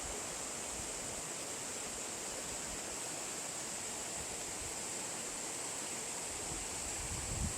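Steady rushing of a clear mountain valley stream flowing over rocks, an even hiss with no change, and a soft low bump near the end.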